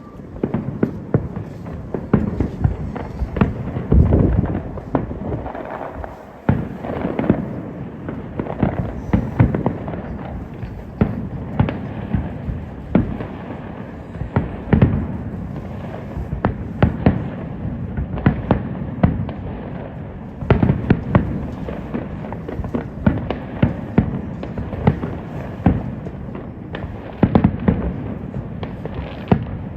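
Aerial fireworks display in a continuous barrage: many shell bursts in quick succession, deep booms mixed with sharp cracks and crackling, several bangs a second with no let-up.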